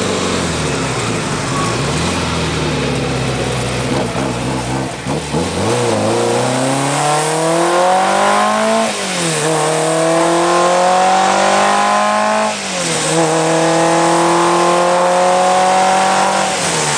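Alfa Romeo TZ's twin-cam four-cylinder engine under way: its pitch eases down over the first few seconds, then climbs in three long pulls through the gears, dropping sharply at each upshift, about nine and twelve and a half seconds in and again right at the end.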